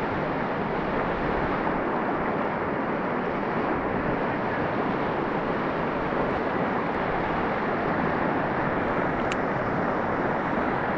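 Steady rushing of a swift river current over rocks, an even unbroken roar of moving water.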